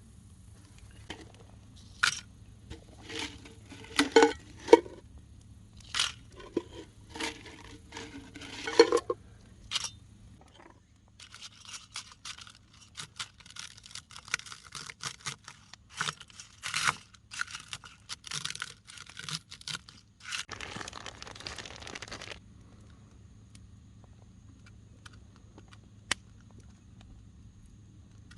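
Potato chips being crushed, with crinkling and scraping: separate crisp crunches for the first ten seconds, then a dense run of crackling that stops about two thirds of the way through.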